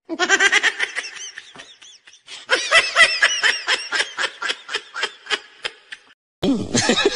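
High-pitched laughter in two long fits of rapid 'ha-ha' pulses, with a short break about two seconds in. Near the end it stops and a different sound cuts in.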